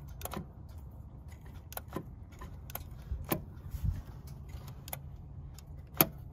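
Scattered light clicks and taps, the sharpest about six seconds in, over a low steady hum: small parts being handled in a car's engine bay around the throttle body.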